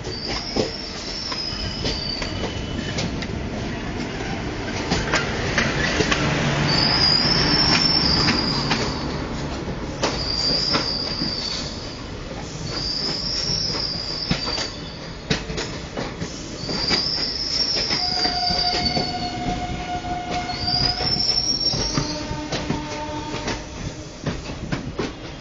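Trains passing on adjacent tracks: steady rumble and clatter of wheels over rail joints, with a high wheel squeal that rises and falls about six times, every few seconds. A held tone sounds for a few seconds after the middle.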